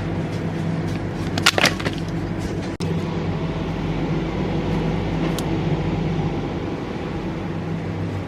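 Steady low mechanical hum with a few scattered clicks; it drops out for an instant about three seconds in.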